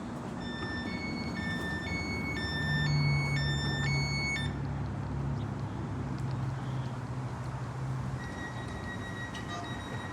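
Electronic warning beeps, alternating between two high pitches about twice a second, for the first four seconds or so. They sit over a steady low hum that runs on for several seconds. Near the end a single steady high tone starts.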